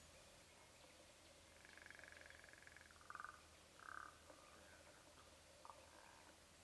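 Faint animal calls over near-quiet bush: a short, rapidly pulsed trill about two seconds in, then two brief calls about a second apart.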